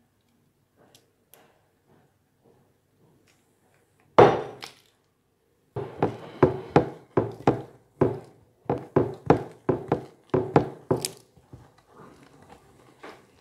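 A wooden spatula pressing and patting dry bread cubes soaked in an egg-and-milk mixture in a glass baking dish: a quick run of knocks, about three a second. A single louder knock comes about four seconds in.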